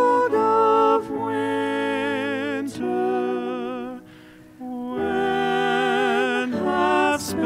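A solo voice singing slow, held notes with vibrato, accompanied by piano. The singing breaks off briefly about four seconds in, then resumes.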